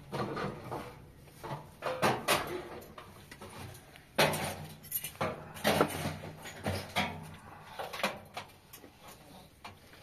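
Irregular clattering knocks and clinks of metal cookware and a sheet-metal stove being handled, with a denser, louder cluster from about four to seven seconds in.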